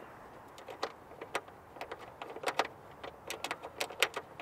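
Small metal clicks and ticks, irregular and about a dozen of them, as a threaded fastener is turned in by hand and worked against a steel mounting bracket.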